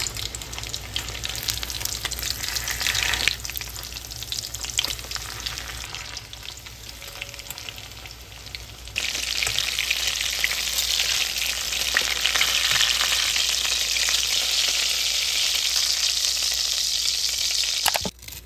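Panko-breaded pork cutlets deep-frying in a pot of hot oil: a steady crackling sizzle that gets louder about halfway through.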